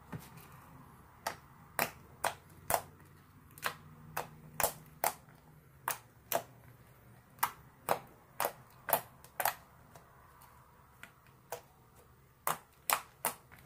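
Clear-glue slime being kneaded and pressed by hand, giving sharp, sticky clicks and pops at an uneven pace of roughly two a second.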